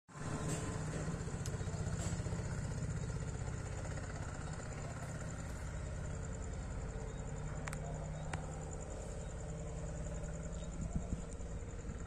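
A small engine idling steadily as a low, even hum, with a continuous high-pitched whine above it and a few faint clicks.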